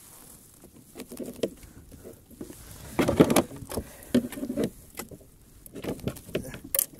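Handling noise on a plastic fishing kayak: irregular knocks, scrapes and rustles as a caught fish is gripped and shifted on the deck. The loudest cluster comes about three seconds in.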